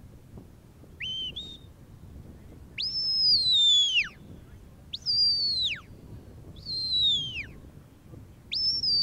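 Sheepdog handler's whistle commands directing a working border collie: a short two-note rising whistle about a second in, then four long high whistles, each sliding down in pitch.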